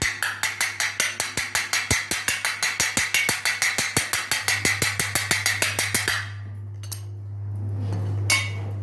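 Rapid light metal taps around the rim of a new 6202 ball bearing, driving it down into its seat in a ceiling fan's housing: about seven taps a second for some six seconds, then they stop.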